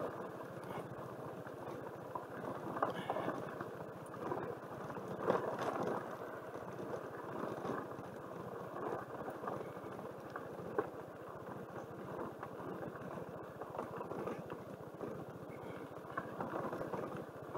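Suzuki Burgman 200 scooter rolling along a loose gravel road: steady tyre and road noise with the engine low beneath it, and a few knocks as the scooter goes over bumps.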